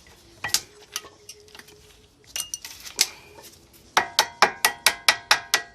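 Metal brake-pad hardware clinking as it is handled: a few separate clinks, then from about four seconds in a quick run of about ten sharp metallic taps, some five a second, each ringing briefly.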